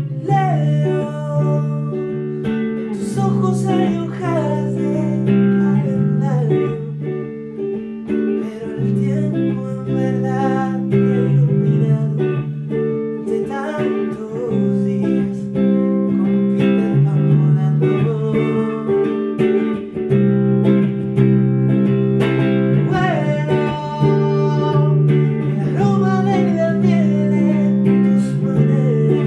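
A man singing, accompanied by an electric guitar played with picked chords. The voice comes in phrases, with the guitar carrying on alone between them.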